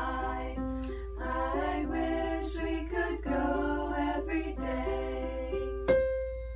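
A small group of teenage girls singing a song together with keyboard accompaniment. Near the end a final keyboard chord is struck and rings on, fading out.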